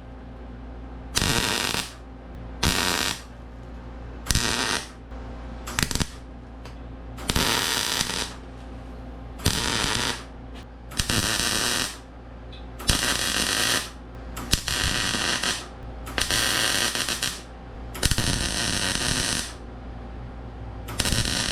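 Arc welder tack-welding steel: about a dozen short bursts of sizzling, crackling arc, each under two seconds, with brief pauses between welds.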